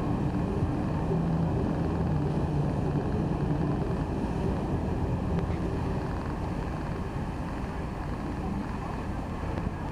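Steady rushing of water pumped up the FlowRider surf simulator's sheet wave, mixed with wind on the microphone.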